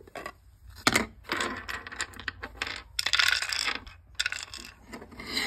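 Hard cured resin castings clicking, clinking and scraping against each other and a plastic container as they are handled: one sharp click about a second in, then several short rattles.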